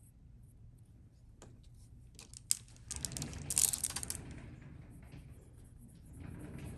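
Plastic beads clicking and clacking together as a beaded necklace is picked up and handled, with a sharp tap about two and a half seconds in as the polish tube is set down on the table. A cotton swab then rubs softly on a bead.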